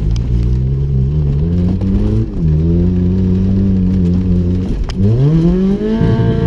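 Nissan Micra rat rod's engine running under load as it is driven, its note rising and holding steady, then dropping sharply about five seconds in and climbing steeply again as it revs up.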